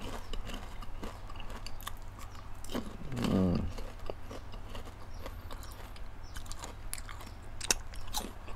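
Close-miked chewing of caramel-coated popcorn, with crisp crackling crunches throughout and a sharp crunch of a fresh bite near the end. A short hummed 'mmm' comes about three seconds in.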